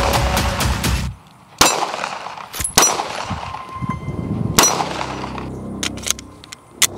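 Pistol gunfire: a quick string of 9mm shots under background music in the first second, then, after a sudden drop, single sharp shots with a short metallic ring, the loudest about a second and a half, two and three quarters, and four and a half seconds in, and lighter ones near the end.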